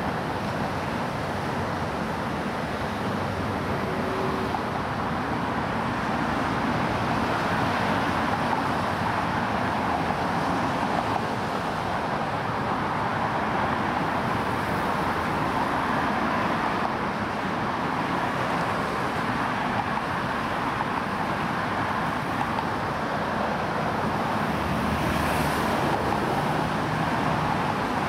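Steady road traffic noise from a stream of cars and SUVs driving past close by on a bridge roadway.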